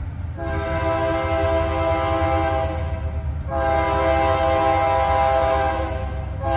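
Locomotive air horn on the lead unit of a Union Pacific train, a GE C44ACM, sounding two long blasts with a brief break between them, a chord of steady tones over a low rumble. Long blasts like these open the standard grade-crossing horn signal.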